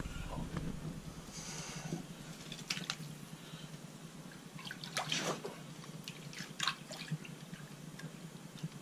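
Water in an ice-fishing hole sloshing and dripping as a northern pike is slid back down through it, with a few short splashes, the largest about five seconds in.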